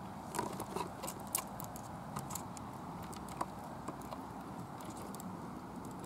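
Twigs and dry grass scratching and snapping against a hand-held camera as it is pushed through undergrowth up to a nest: a scatter of small clicks and crackles, busiest in the first two and a half seconds, over a steady low background rush.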